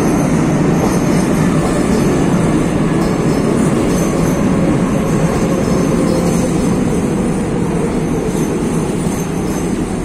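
Madrid Metro Serie 5500 electric train pulling into an underground station, its cars passing close by with a loud, steady running noise of wheels on rail. A faint motor whine falls in pitch through the middle as the train slows to stop.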